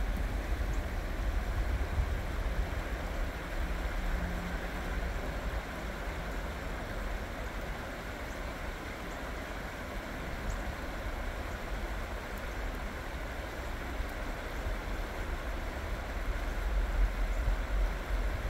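Creek water rushing steadily over rocks, with a low rumble underneath.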